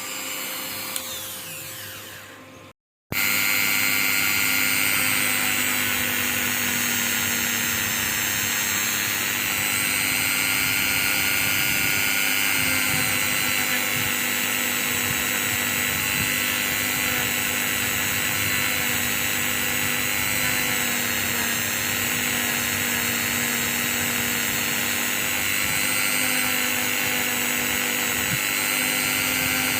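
Small electric tool motor running steadily with an even whine, starting after a short break about three seconds in.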